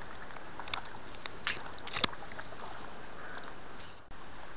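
Shallow stream running steadily over stones, with a few short splashes and clicks in the first two seconds, one sharp knock the loudest, as a released trout splashes off in the shallows. The sound dips out briefly near the end.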